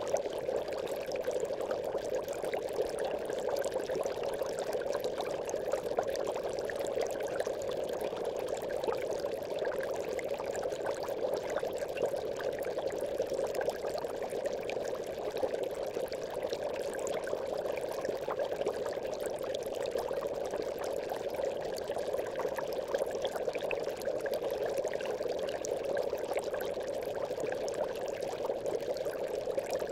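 Aquarium air bubbles rising through water in a steady, continuous stream, an even bubbling without pauses.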